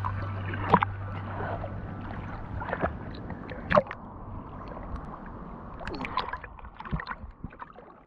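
Lake water splashing and lapping close to the camera around a swimmer, with scattered sharp splashes and drips, growing fainter toward the end.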